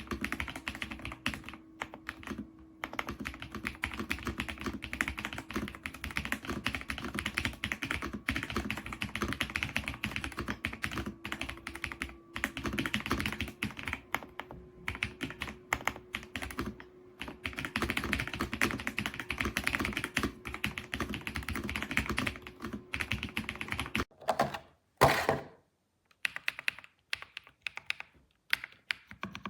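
Typing on an EPOMAKER Ajazz AK820 Pro gasket-mounted mechanical keyboard with Ajazz Gift switches, a fast, dense run of key clacks. About 24 seconds in the typing thins out to a few scattered keystrokes.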